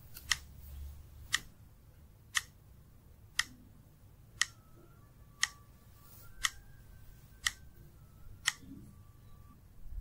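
Countdown-timer clock ticking, nine sharp ticks evenly spaced about once a second.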